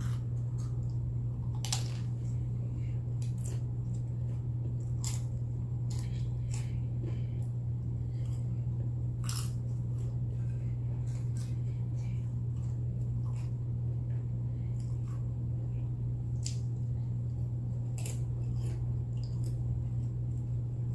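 Nacho chips being bitten and chewed, with scattered, irregular crunches. A steady low hum runs underneath.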